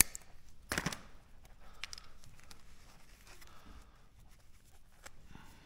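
Plastic being pulled and cut off a wiring-harness connector by hand: a sharp click at the start, a short tearing rustle just under a second in, then small clicks and rustles.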